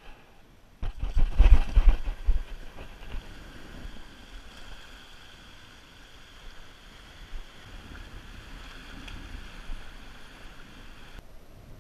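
Sea surf washing over shore rocks, with wind rumbling heavily on the microphone about a second in before settling into a steady wash of waves.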